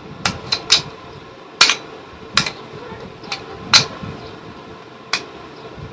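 Sharp metallic clicks from an air rifle's action being worked by hand, about eight clicks at uneven spacing, the loudest about a second and a half in and near the middle.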